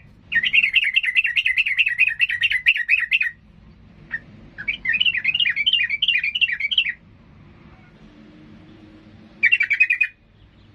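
Yellow-vented bulbul (trucukan) chattering in quick runs of repeated notes: a long bout at the start, a second bout whose notes swing up and down in pitch, and a short burst near the end. This is the agitated, full-voiced 'gacor emosi' song that keepers use to rile rival birds.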